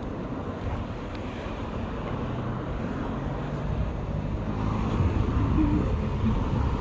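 Street traffic noise with wind buffeting the microphone, growing louder in the second half.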